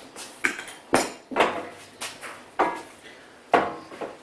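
Steel parts of a hydraulic body repair kit (ram, fittings and extension pieces) being handled and set down, knocking and clinking against each other about five times, each knock ringing briefly.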